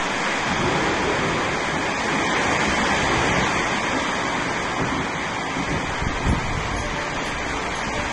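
Heavy rain falling as a steady, even hiss, with a brief low thump about six seconds in.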